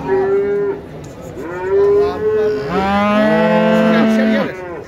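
Cattle mooing: a short call at the start, then longer calls, the last a low call lasting about a second and a half near the end.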